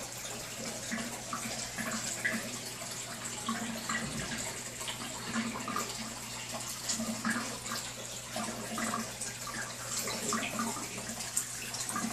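Aquarium water trickling and bubbling with many small plops, over a steady low hum from the tank's equipment.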